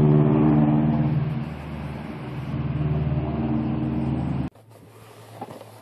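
Car engine running with a steady low hum, easing off slightly about two seconds in and picking up again, then cutting off abruptly about four and a half seconds in.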